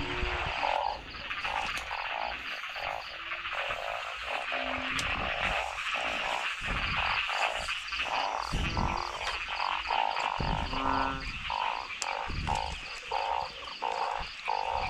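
A chorus of many frogs croaking with overlapping, repeated calls, and a high evenly pulsed chirping running through much of it. A few low thuds come from movement close by.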